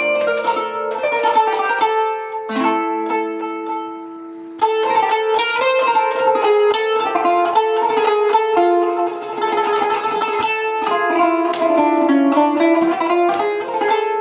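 Kanun (Turkish plucked zither) playing an improvised taksim in makam Nihavend: quick runs of plucked notes over ringing lower strings. The playing fades about three seconds in and resumes loudly about a second and a half later.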